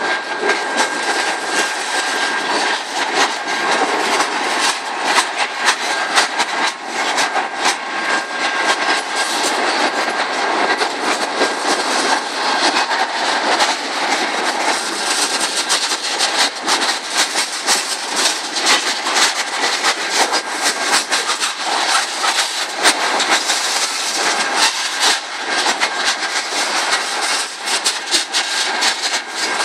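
Freight train cars rolling past, their steel wheels clattering over the rail joints in a dense, steady run of clicks.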